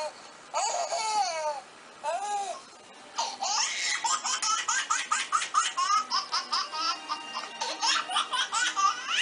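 A laughing ringtone playing from a phone's small speaker: a few high, swooping squeals, then from about three seconds in a quick run of high-pitched giggles.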